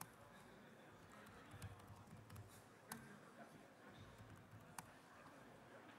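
Near silence: faint room tone with a few isolated soft clicks.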